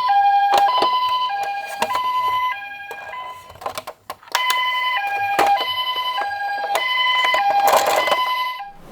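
Toy ambulance's electronic two-tone siren, sounding the Japanese-style hi-lo pattern with high and low notes alternating about every half second, mixed with plastic clicks and knocks. The siren stops about three and a half seconds in, then starts again about a second later and runs until just before the end.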